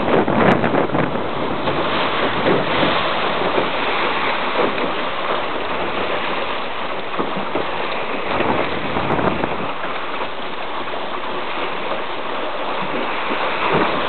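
Wind buffeting the microphone over the rush of water along the hull of a Welsford Pathfinder open sailing yawl under way in about 15 knots of breeze. The noise is steady, gusting harder in the first few seconds.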